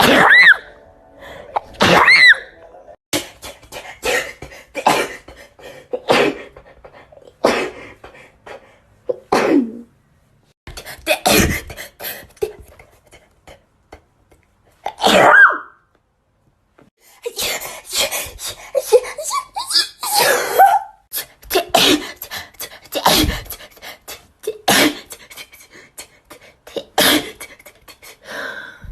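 A girl in a sneezing fit, sneezing rapidly over and over: several loud full sneezes among quick runs of shorter ones, with a short lull about halfway through.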